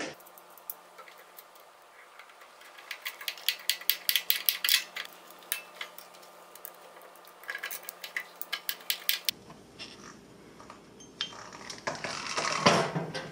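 Screws being driven with a hand screwdriver to fasten a metal bobbin-winder bracket to a sewing table. Runs of quick metal clicks and clinks come from the screwdriver, screws and washers, with a louder clatter near the end.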